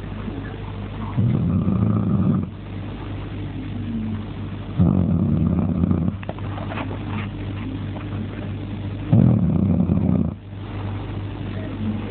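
A man snoring heavily: three loud, rough snores, each about a second long and roughly four seconds apart, with quieter breathing between them over a steady low hum.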